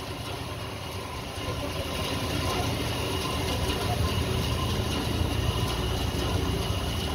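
Saw mill machinery running: the large spoked drive wheel spins, giving a steady low rumble with a faint steady high whine, growing a little louder about a second and a half in.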